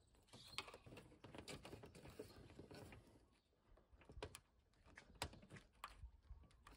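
Near silence with a few faint, scattered clicks and taps: a hand pushing the socket end of a new powered liftgate lift support onto its ball stud.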